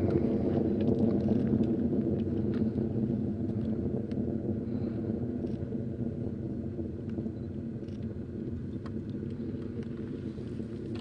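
Rocket engine heard from the ground as the rocket climbs away: a low, steady rumble with scattered crackles, slowly fading.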